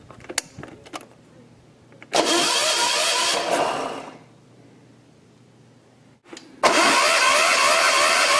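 A few clicks from the key switch, then the electric starter cranking the generator's small single-cylinder diesel engine in two bursts: one of about two seconds, and after a short pause a second one that is still going at the end. The engine does not fire, because the high-pressure fuel line at the injector is loosened to bleed trapped air out of the fuel system.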